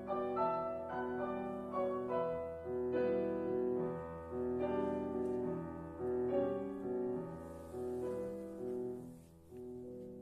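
Piano playing alone: a flowing passage of separate notes over held low bass, growing softer near the end. The French horn rests.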